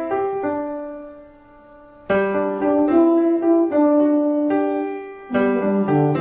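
Cartoon soundtrack music: a bright keyboard melody played in short phrases. It fades down about a second in, comes back strongly at about two seconds, and dips briefly again near the end.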